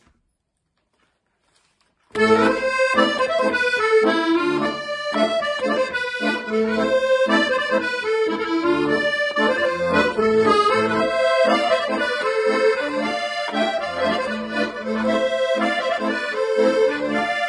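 Solo accordion playing a tune over a steady pulse of bass notes and chords, starting after about two seconds of silence.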